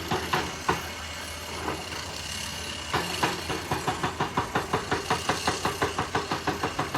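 Diesel engine of heavy quarry machinery running, with a regular knocking that settles into about four knocks a second in the second half.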